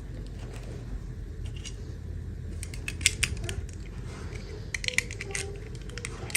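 Light clicks and taps of small plastic toy pieces and packaging being handled. They come in a cluster about three seconds in and again around five seconds, over a steady low hum.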